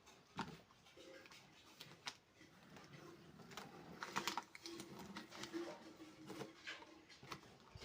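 Light scattered clicks, taps and rustling from handling the packaging and parts of an unboxed chainsaw, with a cluster of sharper clicks about four seconds in.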